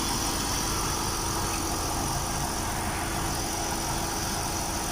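Chevrolet car engine idling steadily at normal idle speed, with a newly replaced idle air control valve. The idle holds even rather than rising and falling (hunting).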